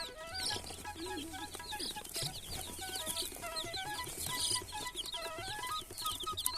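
Young chicks cheeping: a dense, steady stream of short, high peeps, over background music with a stepped melody.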